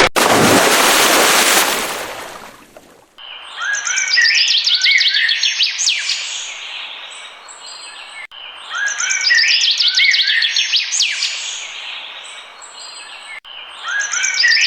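A loud rushing noise fades out over the first three seconds, then birds chirping and twittering take over. The birdsong is a stock clip repeated as a loop about every five seconds.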